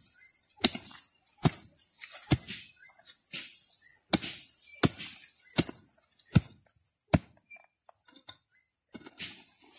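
A short metal hand digger chopping into soil, about eight strikes just under a second apart. Crickets chirr steadily behind it until they stop about seven seconds in.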